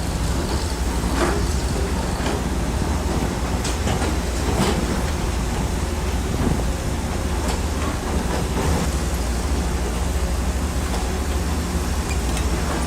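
Bulldozer's diesel engine running steadily under load, with scattered knocks and metal rattles from the machine at work.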